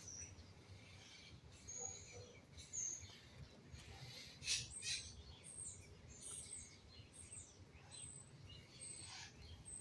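Faint high chirps from small birds: a dozen or so short calls, each dropping in pitch, scattered through, over a low background hiss.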